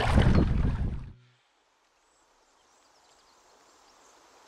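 Rushing noise of wind and water on the microphone of a canoe being paddled, cutting off abruptly about a second in. After that comes only a faint, steady hiss of a calm river.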